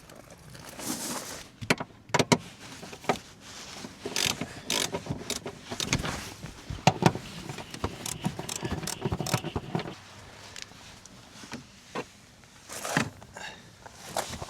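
A run of clicks, knocks and rattling scrapes from parts of a car's interior being handled and taken out, with the loudest knocks in the middle.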